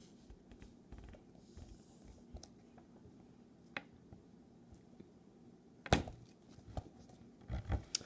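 Hand-tool handling: needle-nose pliers and a stiff wire being worked into a hook. Faint rustling is broken by a sharp click about six seconds in and a few quick knocks near the end.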